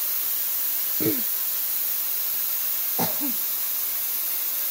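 Airbrush spraying water through to rinse out water-based liquid mask: a steady hiss of compressed air and spray. Two short sounds falling in pitch come about a second and three seconds in.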